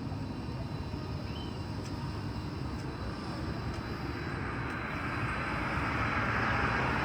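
Steady low rumble of traffic passing along a city street, with a rushing noise that swells louder over the second half as a vehicle approaches.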